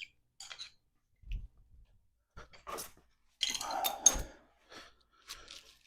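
Hand tools being handled while working on a motorcycle's front brake caliper: scattered clicks and rustles, a low thump about a second in, and a louder scraping rattle with a sharp click about three and a half seconds in.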